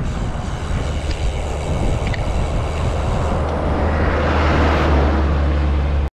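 Wind rumbling on the microphone of a moving bicycle, with an oncoming tanker truck's engine and tyre noise swelling about four seconds in. The sound cuts off suddenly at the end.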